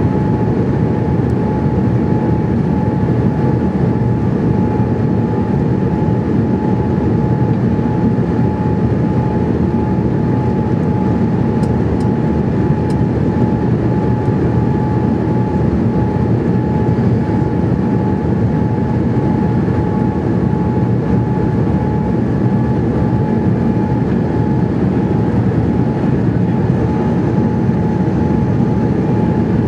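Steady cabin noise inside a Boeing 787-8 airliner on approach with flaps extended: a low, even rush of airflow and engine noise, with a steady whine running through it.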